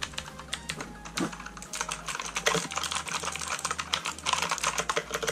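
Keys of a Redragon Vara mechanical keyboard with clone Cherry MX Blue switches being pressed rapidly, a quick run of sharp clicks that grows denser about a second in.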